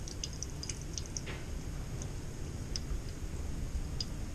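Thin stream of water trickling from a wall-mount faucet into a stainless steel sink over a steady low rumble, with small irregular ticks, a cluster of them in the first second and a few single ones later. Flow is weak because air is trapped in the supply hose, an airlock.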